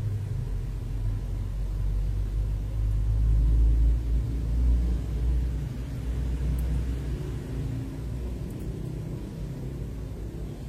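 A low rumble that swells about three to five seconds in and then eases off.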